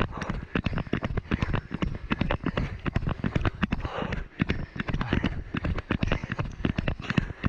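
A runner's quick footfalls on a dirt trail, with the body-mounted action camera knocking and jostling at every step: a dense, irregular run of thuds and knocks, several a second.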